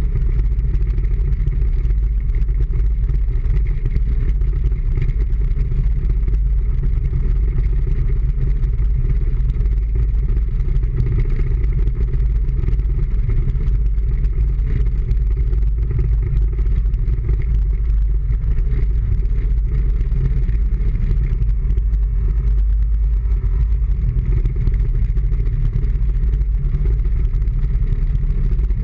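The engine of the vehicle carrying the camera runs steadily, with road noise, as it drives slowly along a city street.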